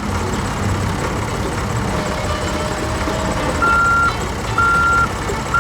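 Heavy machine engine running steadily, with a reversing alarm beeping three times, about once a second, starting a little past halfway.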